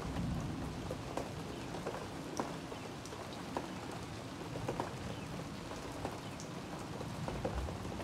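Steady rain falling on wet brick pavers and garden plants: an even hiss dotted with scattered single drops ticking close by.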